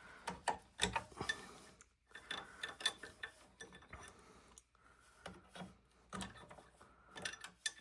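Irregular small clicks and scrapes of a stiff wire connector being worked loose from a treadmill's motor controller board.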